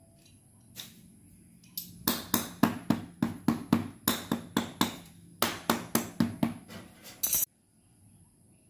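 Hammer tapping quickly and repeatedly on a sandal sole during resoling, about four blows a second, in two runs with a short pause between them; the sound cuts off suddenly.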